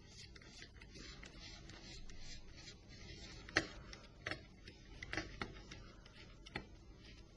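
A handful of small, sharp clicks over a faint hiss, from a screwdriver undoing the Torx Plus screws of a Nokia 3300 and the phone's small parts being handled. The first click, about three and a half seconds in, is the loudest.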